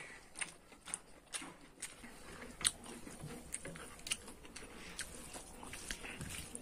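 A person eating rice and egg curry by hand: open-mouthed chewing with sharp, wet lip smacks at irregular intervals, the loudest about two and a half seconds in, along with fingers squelching the food on the plate.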